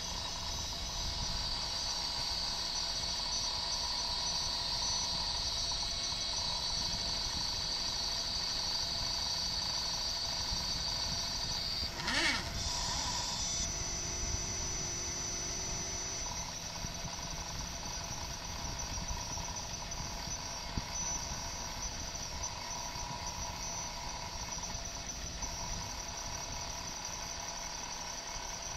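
Mini CNC laser engraver's small stepper motors driving the lead-screw axes: a steady high-pitched whine whose pitch shifts as the moves change, with a brief sweeping sound about twelve seconds in.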